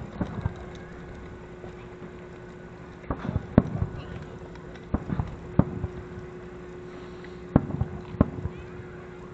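Distant fireworks going off: sharp bangs in clusters of one to three about every two seconds, each trailing off in a short echo, over a steady faint hum.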